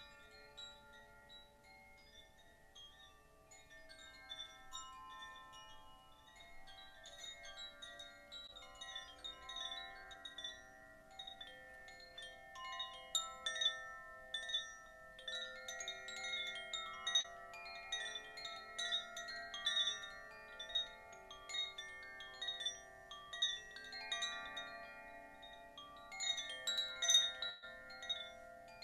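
Chimes ringing: many struck tones of different pitches overlapping and ringing on, with bright tinkling strikes above them. The ringing grows fuller after the first few seconds.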